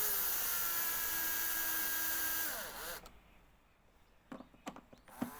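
Cordless drill-driver driving in an airbox cover screw. The motor runs steadily, drops a little in pitch as the screw takes up, then winds down and stops about three seconds in. A few light clicks follow.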